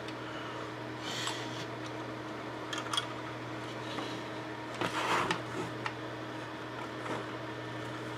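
Handling sounds of a plastic model kit hull and a glue bottle on a work mat: a few soft rubs and small clicks, with a brief louder shuffle about five seconds in, over a steady low hum.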